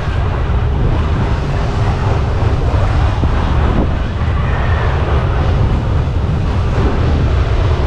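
Wind buffeting the microphone as it is carried round on a spinning helicopter amusement ride: a loud, steady low rumble with a rushing hiss.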